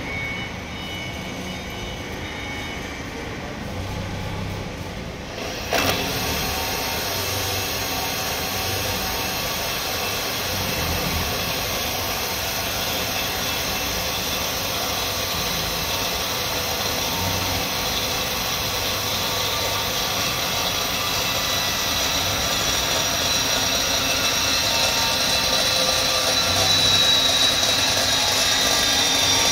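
Cordless drill driving a torque-multiplier wrench attachment: it starts suddenly about six seconds in and then runs steadily as a gear whine, rising slightly in pitch near the end.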